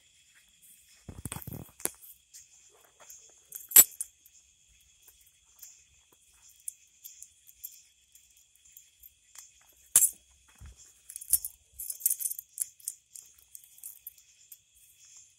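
Steady high chirping of crickets, broken by a loud sharp click about four seconds in, another about ten seconds in, and then a run of jingly rattling clicks.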